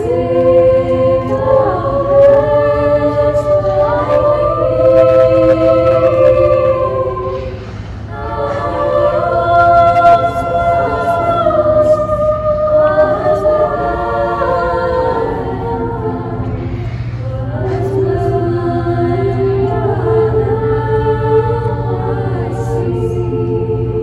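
A girls' choir singing sustained chords in three long, slow phrases. A steady low hum runs underneath.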